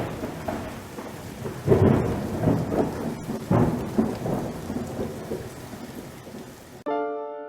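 Thunderstorm: steady rain hiss with three rolling claps of thunder about two seconds apart. It cuts off suddenly near the end and piano music begins.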